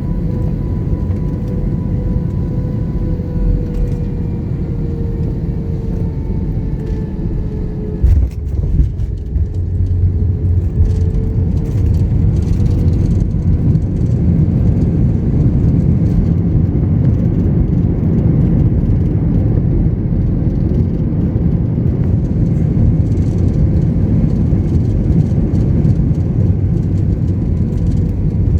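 Airbus A321-211 cabin sound: engines running with a steady whine that slowly drifts lower over a constant rumble. About eight seconds in a sharp thump marks the wheels touching down, and a heavier rumble of the engines and the tyres on the runway follows as the aircraft rolls out.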